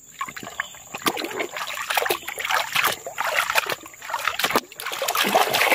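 Shallow muddy water splashing and sloshing in quick, uneven splashes as a hand scrubs a small plastic toy bus clean in it.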